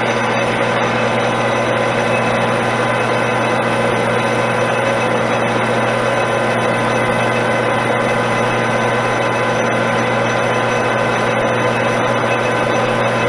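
Metal lathe running steadily, its motor and gearing giving a constant hum and whine, while it takes a light cut of about five thousandths in a brass part.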